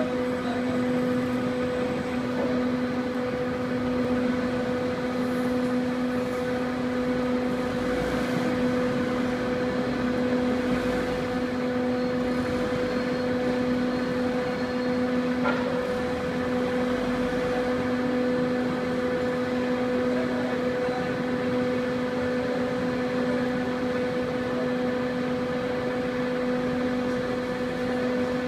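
Long turntable pallet stretch wrapper running as it wraps a load: the turntable drive and film carriage give a steady mechanical hum with a constant droning tone.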